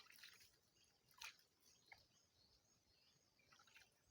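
Near silence, broken by a few faint short clicks, the clearest about a second in.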